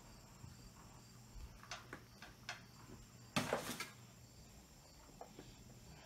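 Lesslie Locke spinner ceiling fan coasting down with the power off, its new-old-stock bearings stiff so that it slows abruptly; faint, with a steady low hum and a thin high tone. A few light clicks come about two seconds in, and a brief louder noise about three and a half seconds in.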